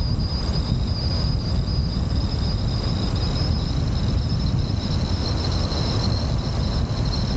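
Steady low rumble of wind and road noise from a car driving along a country lane, heard from a roof-mounted camera, with a steady high-pitched whine over it.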